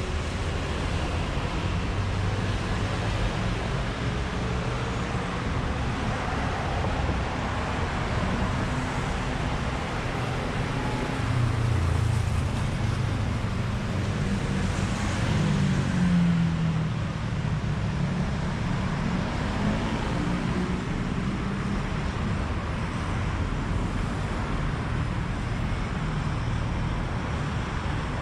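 Steady busy road traffic, a low rumble of engines and tyres. A louder vehicle engine swells and fades about halfway through.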